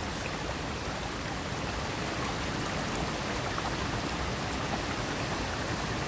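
Steady rush of water from a rocky stream tumbling over stones, with a waterfall just upstream.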